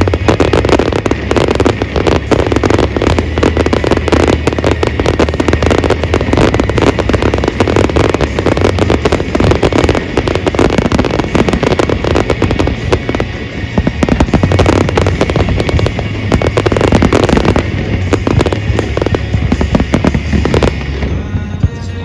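A dense fireworks barrage: rapid, overlapping bangs and crackles going on without a break, with music playing underneath. Near the end the bursts thin out and the music comes through.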